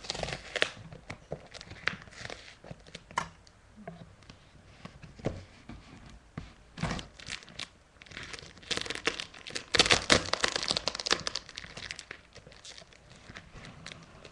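Packing tape being peeled and ripped off a taped cardboard box, in irregular rips and crackles, with the longest and loudest stretch of tearing about two-thirds of the way through.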